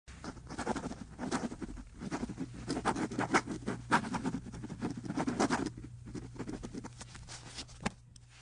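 Pen nib scratching across paper in quick writing strokes, dense at first and thinning out after about six seconds, with one sharp tick near the end. A faint steady low hum runs underneath.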